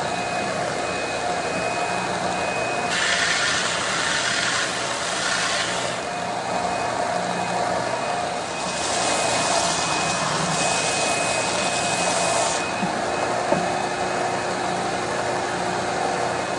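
Ridgid benchtop belt sander running with a 40-grit belt, with a dust-collection vacuum running on its port. A laminated hardwood bow-riser block is pressed against the belt twice, from about 3 to 6 seconds in and again from about 9 to 12.5 seconds, each time adding a louder sanding hiss over the steady motor sound.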